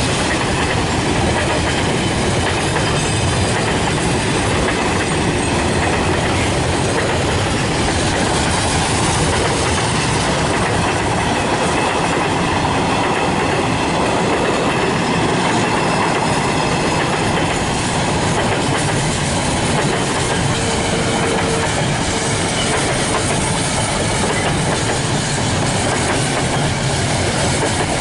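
Container wagons of a long freight train rolling past close by: a steady, loud noise of steel wheels running on the rails.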